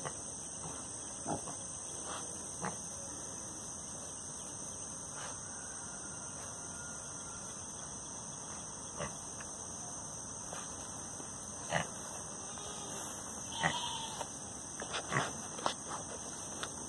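A pig grunting now and then in short, scattered sounds, more often in the last few seconds, over a steady high-pitched hiss.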